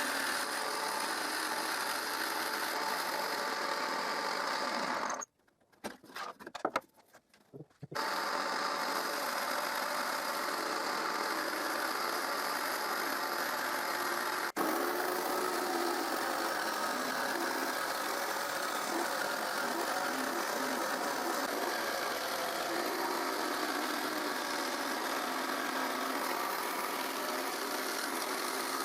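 Jigsaw with a metal-cutting blade running steadily as it cuts through thin 1 mm sheet metal. The sound stops about five seconds in, with a few short knocks, and resumes about two and a half seconds later.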